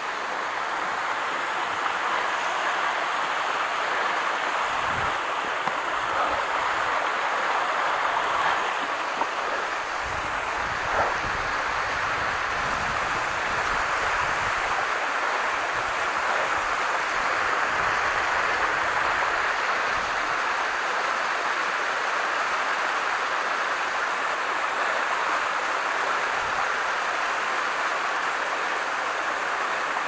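Steady rush of a waterfall's falling water, unbroken throughout, with a few faint low thumps here and there.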